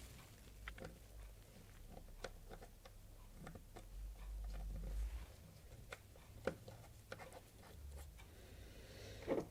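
Scattered light clicks and taps of small metal pedal parts and tools being handled on a workbench, with a sharper knock near the end.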